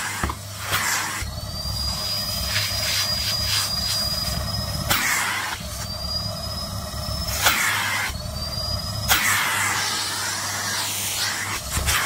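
Canister vacuum cleaner running steadily while its hose nozzle sucks at a shiny nylon puffer jacket, with repeated rustling and crinkling as the fabric is drawn against the nozzle. A high whine rises in pitch several times and then holds.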